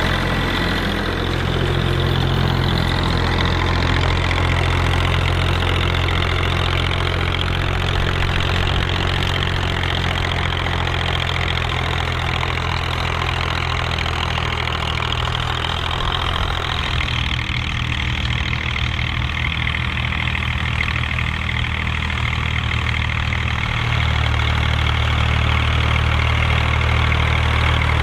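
Massey Ferguson tractor engine running steadily. Its note shifts at about two-thirds of the way through and grows a little louder near the end.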